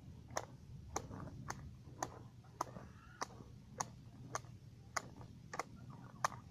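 Hand blade chopping grass at the ground in a steady rhythm: a sharp click with each stroke, a little under two strokes a second.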